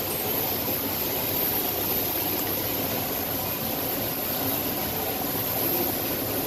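Rubber-tyred Skylink automated people-mover train running steadily along its guideway, heard from inside the car: an even rumble and hiss of tyres and drive with a steady very high whine above it.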